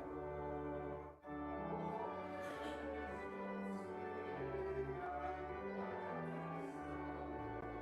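Instrumental music of sustained, held notes over a bass line that steps from note to note, with a short break in the sound about a second in.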